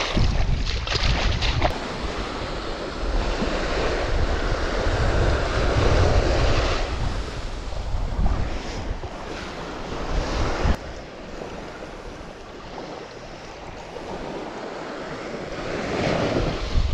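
Small waves washing on a sandy beach with wind gusting on the microphone, louder and rumbling for the first several seconds while water splashes as a nylon cast net is dragged out of the shallows. One sharp click about eleven seconds in.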